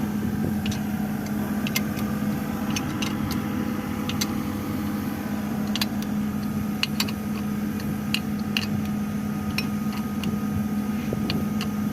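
Backhoe loader's diesel engine idling steadily, with scattered light clicks over it.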